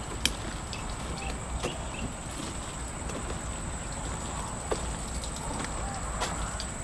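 Irregular footsteps and sharp clicks from someone walking a dirt path, with the loudest click about a quarter-second in, over a steady thin high-pitched whine.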